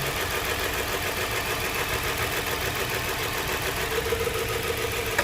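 Nissan Murano V6 engine idling steadily while misfiring: cylinders 3 and 4 are not firing, as shown by a scan-tool cylinder test.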